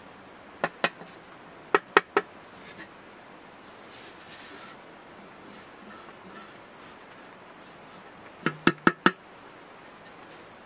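Sharp, slightly ringing knocks on a fired clay pot: two, then three, then a quick run of four near the end. A steady high insect buzz runs underneath.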